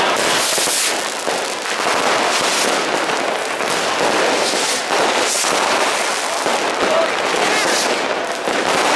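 Dense, near-continuous barrage of fireworks and firecrackers: many overlapping bangs and crackling pops with no real pause.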